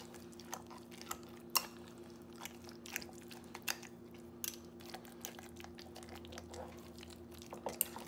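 Fork mashing and stirring potato filling by hand in a glass measuring cup: irregular sharp clicks of the metal tines against the glass, over the soft wet sound of the mash.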